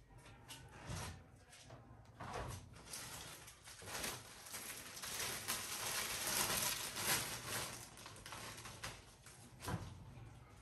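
Clear plastic packaging crinkling and rustling as a bed-sheet set is pulled out and handled, loudest about halfway through, with scattered small clicks and the soft rustle of fabric.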